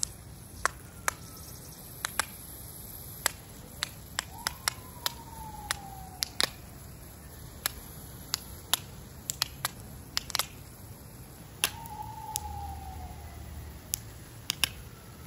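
Garden sprinkler spraying water over a lawn: a steady hiss broken by many sharp, irregular ticks. Twice a faint tone slides down in pitch, each lasting about a second and a half.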